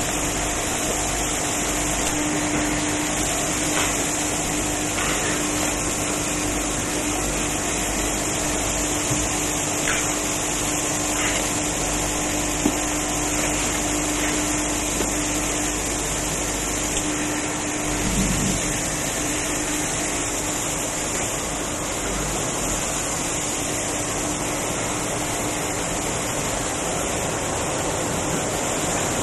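Steady factory machinery noise: a constant rushing hiss with a steady hum that drops out a little past halfway, and a few faint clicks.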